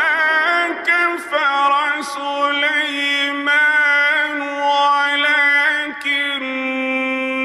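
A man chanting the Qur'an in the melodic Egyptian mujawwad style: one long melismatic phrase of held notes with ornamented turns and slides, settling onto a lower held note about six seconds in.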